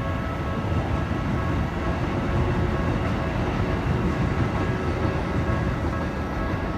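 A Keikyu Daishi Line electric train rumbling over the tracks at the level crossing, a steady heavy rumble, while the crossing's warning bells ring on in a steady electronic tone.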